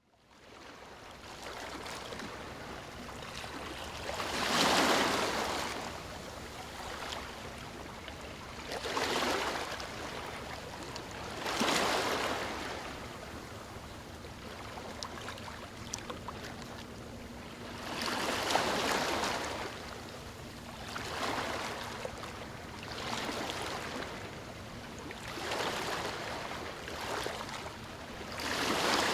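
Calm, small waves breaking and washing up on a sandy beach. A soft surge of surf rises and falls every two to five seconds over a steady hiss of water, fading in at the start.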